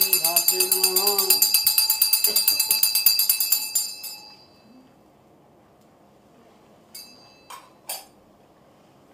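Small metal hand bell rung rapidly and evenly, about six strokes a second, over a voice chanting a mantra. The chant stops after about a second and a half; the bell stops after about four seconds and its ring dies away. A few faint sharp clicks follow near the end.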